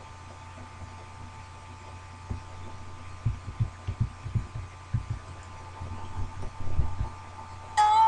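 Keys being typed on a computer keyboard, heard as irregular low muffled thumps that start about two seconds in, over a steady electrical hum. Near the end there is a brief, loud pitched tone.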